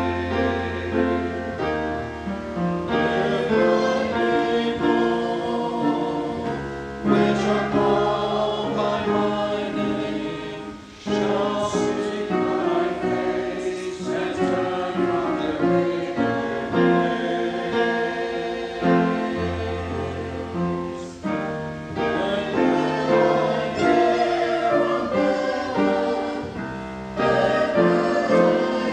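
Small mixed church choir singing with organ accompaniment, held low bass notes under the voices. The sound is continuous, with short breaks between phrases.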